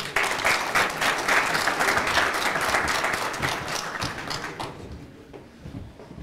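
Audience applauding in a hall, a dense patter of many hands clapping that dies away about five seconds in.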